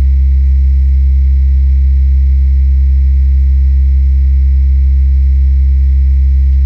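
Steady, loud low electrical hum with a ladder of evenly spaced overtones and faint hiss above, unchanging throughout. The uploader attributes it to the power lines and electric grid.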